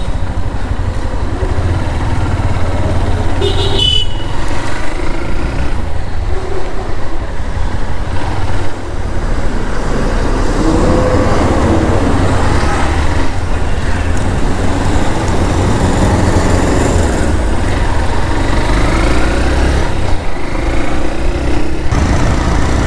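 Motorcycle riding through city traffic, with a steady low rumble of the engine and wind on the microphone. Other vehicles' horns toot around it, one short high-pitched toot about four seconds in.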